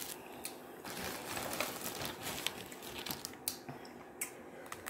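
Boiled crawfish shells being cracked and peeled by hand close to the microphone: a run of irregular crackles and sharp clicks.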